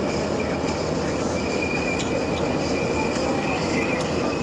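Steady machinery noise from a large warship: a low rumble with an even high-pitched whine running over it.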